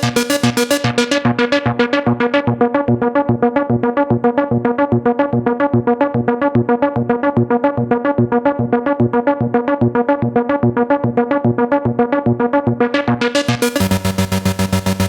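Korg ARP 2600 FS analog synthesizer playing a fast, even stream of short repeated notes, several a second. The tone grows duller after about a second, as the filter closes, then turns bright again near the end as the filter opens.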